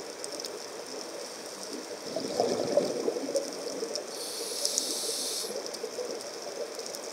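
Scuba diver breathing through a regulator underwater: a burst of exhaled bubbles about two seconds in, then a hissing inhalation through the regulator at about four seconds, lasting over a second.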